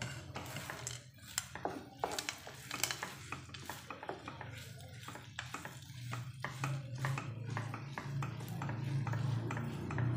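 Spatula scraping and knocking against a coated pan, stirring a thick tender coconut and jaggery mixture, in many irregular clicks and scrapes over a low steady hum.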